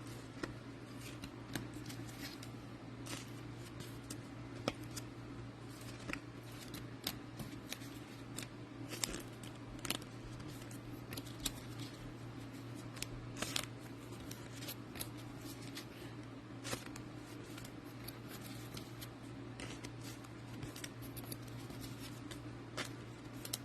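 Trading cards being handled and slid into plastic penny sleeves and toploaders: faint, irregular clicks and light scrapes of card and plastic over a steady low hum.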